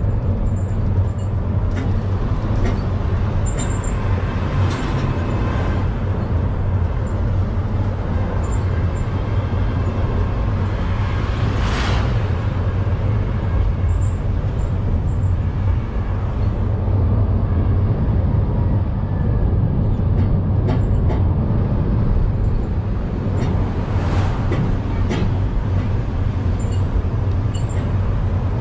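Engine and road noise from a moving open-sided tour vehicle, heard from a passenger seat: a steady low rumble with wind across the open sides. There are brief louder whooshes about halfway through and again near the end.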